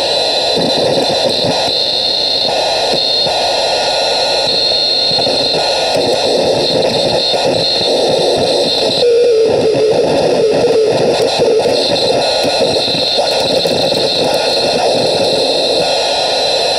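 A homemade crystal-radio noise synth puts out a dense, crackling radio-static hiss with a steady high whine. Its sound shifts as its knobs are turned; about nine seconds in, a wavering mid-pitched tone rises out of the noise for a few seconds.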